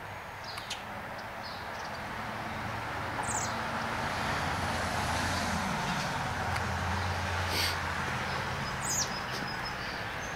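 A vehicle going past: a steady rush of tyre and engine noise that swells toward the middle, its engine note dropping in pitch as it passes. A few short bird chirps come twice.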